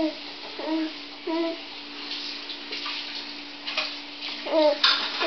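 A baby making a few short cooing sounds, three brief calls, over a steady low hum, with a sharp click near the end.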